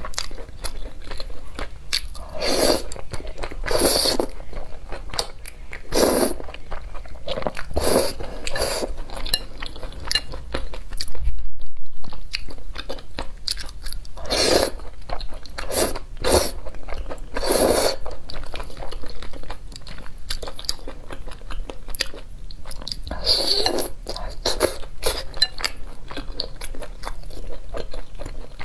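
Close-miked mukbang eating: wet chewing and slurping of thick noodles in chili sauce, loud mouth noises coming every second or two. A dull low thump about halfway through is the loudest moment.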